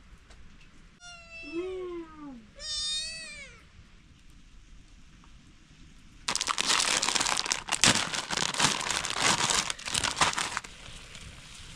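A cat meowing twice, the first call falling in pitch and the second rising then falling. Several seconds later comes a loud crinkling, rustling noise lasting about four seconds.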